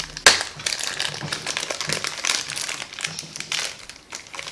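Small clear plastic bag crinkling and crackling as it is handled and pulled open by hand, in a run of irregular crackles with one sharper, louder crackle about a quarter second in.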